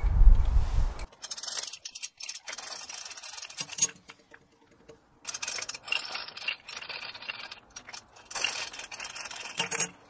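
Hand-operated 1-ton chain hoist ratcheting in several runs of rapid clicking as its hand chain is pulled, with the chain rattling, putting a test specimen under pulling load. A low rumble stops about a second in.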